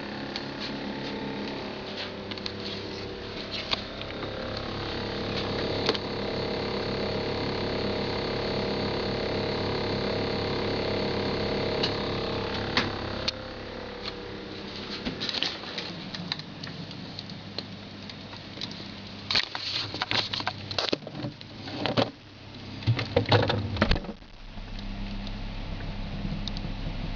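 Samsung refrigerator running with a steady hum of several tones. Around halfway through, a run of irregular clicks and crackles comes in for several seconds, and near the end the hum changes to a deeper drone.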